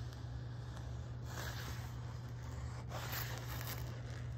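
Clear plastic film on a diamond-painting canvas rustling and rubbing as the canvas is handled, in two soft spells about a second in and about three seconds in, over a steady low hum.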